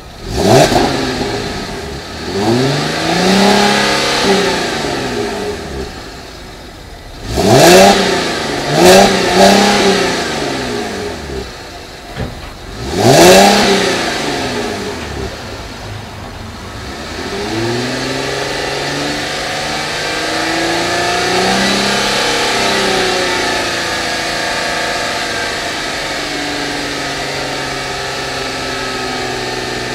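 2010 Cadillac CTS Wagon's 3.6 L DOHC V6 free-revving through its exhaust, heard at tailpipe level: one sharp rev that falls away slowly, three quick blips about seven seconds in, and another rev near the middle. After that the engine settles into a steadier run with its pitch wavering slowly.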